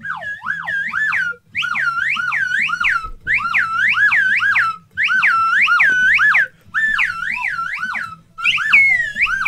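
Plastic slide whistle played in fast up-and-down swoops, several a second, in runs of about a second and a half broken by short gaps.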